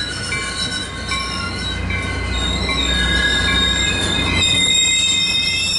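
Caltrain commuter train's passenger cars rolling past with a high squeal of several steady tones from the wheels, over a low rumble.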